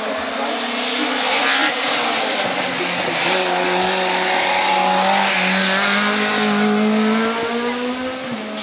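Hill-climb race car at full speed, its engine note held high and slowly rising in pitch, growing louder toward the middle and then easing off as it passes.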